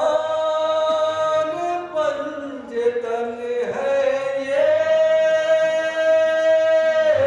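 A man's voice singing devotional poetry in long, drawn-out held notes, three phrases, the last held for nearly three seconds before breaking off near the end.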